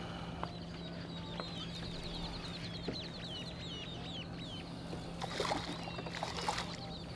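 A hooked fish thrashes and splashes at the water surface for about a second and a half near the end. Many short, falling bird chirps repeat throughout.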